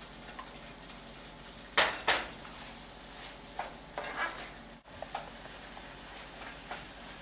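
Paneer being stirred into a simmering tomato gravy in a non-stick pan: a steady low sizzle, with a spatula scraping and tapping the pan. Two sharp knocks come about two seconds in.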